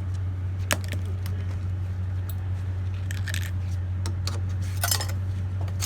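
Scattered light metallic clinks and taps, a few of them sharper (about a second in, near the middle and near the end), over a steady low hum.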